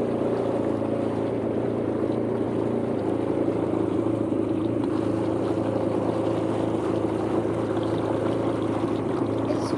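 Yamaha jet ski engine running steadily as the watercraft cruises, a constant engine tone with the rush of water along the hull.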